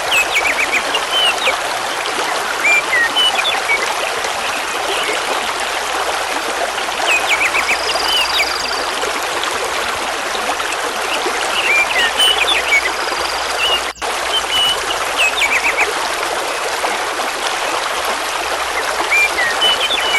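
Mountain river rushing steadily over large stones, with small songbirds chirping and trilling in short phrases every few seconds. The sound drops out briefly about two-thirds of the way through.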